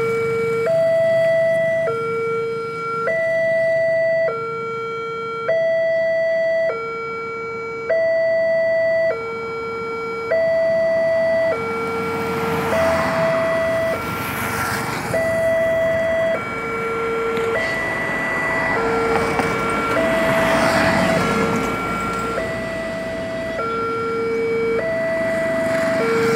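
Railway level-crossing warning alarm sounding a steady two-tone signal, a high tone and a low tone taking turns about every second, warning that a train is approaching. From about 12 to 22 seconds the rush of passing road traffic joins it.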